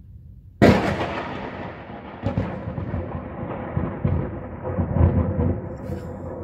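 Close thunderclap: a sudden sharp crack about half a second in, then a long rolling rumble that swells again twice.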